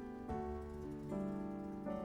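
Gentle ballad accompaniment with guitar: soft chords held and changing about a second in, between sung lines of a slow song.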